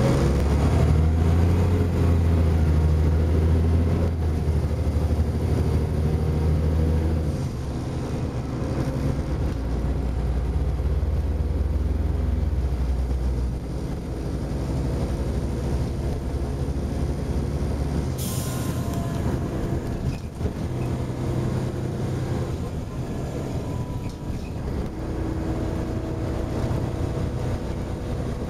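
Volvo Olympian double-decker bus's diesel engine and automatic gearbox heard from inside the bus while it drives. It pulls with a rising whine that drops as the gearbox changes up, twice in the first half, then runs more quietly at a steady pace. A short hiss comes a little past the middle.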